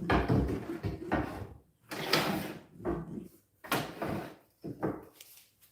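Rummaging for workshop parts: about five rough sliding and scraping noises, roughly a second apart, which stop a little after five seconds in.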